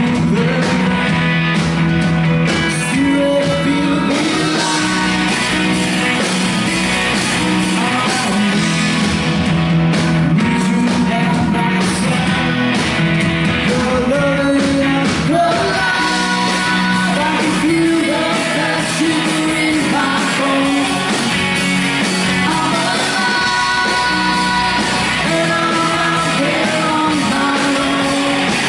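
Live rock band playing with electric guitars, bass, keyboard and drums, and singing throughout.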